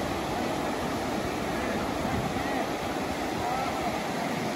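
Ocean surf breaking and washing up a shallow sandy beach as a steady rushing noise.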